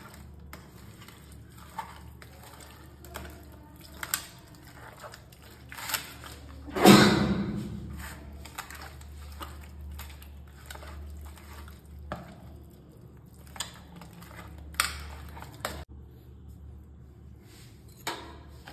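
Hands mixing and rubbing raw rohu fish pieces with a wet spice marinade in a steel plate: soft squishing with scattered clinks and scrapes against the metal, and one loud knock about seven seconds in.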